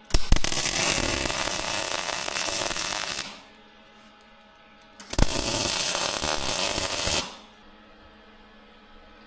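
Electric welding arc crackling in two runs, about three seconds and then about two seconds long. Each run starts abruptly with a sharp strike.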